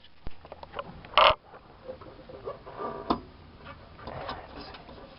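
Handling noises: a few sharp clicks and knocks over light rustling. The loudest knock comes about a second in, and another sharp click comes around three seconds.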